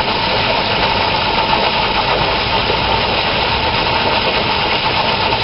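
Pool fountain water jets splashing steadily into the pool, a constant loud rush of falling water.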